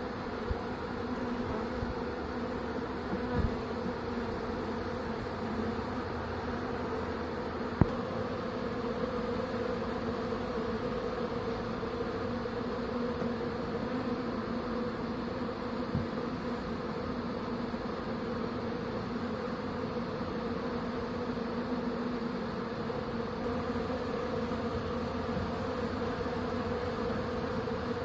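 A swarm of a few thousand honeybees humming steadily in the air as it moves into a swarm-trap box. A couple of short knocks stand out, the sharpest about eight seconds in.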